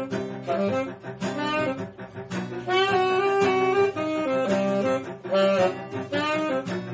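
Background music: an instrumental piece with a melody moving in held notes over a bass line.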